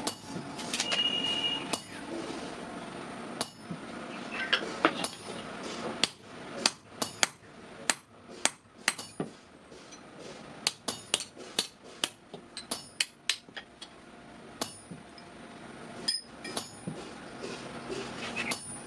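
Hand hammer striking a sheet-iron kadai as it is shaped: a run of sharp metallic blows, irregularly spaced, coming fastest in the middle at about two a second.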